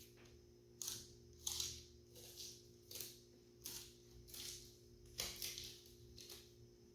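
Faint crinkling and rustling of plastic packaging as the heater's wiring harness and small parts are handled, in a string of short irregular rustles about one a second.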